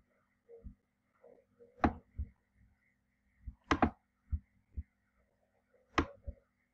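Computer mouse buttons clicking, three sharp clicks about two seconds apart with softer taps between, over a faint steady electrical hum.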